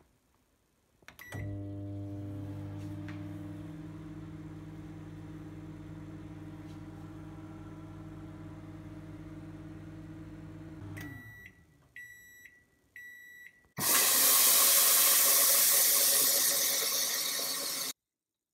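Midea microwave oven: a button beep, then the oven running with a steady hum for about ten seconds, stopping with three beeps as it finishes. Then a loud, steady rushing noise for about four seconds that cuts off suddenly.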